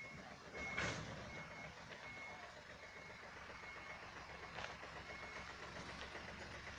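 Isuzu Deca truck's reverse alarm beeping faintly, a short high beep repeated at an even pace, over the low running of its diesel engine. A brief rustle comes about a second in.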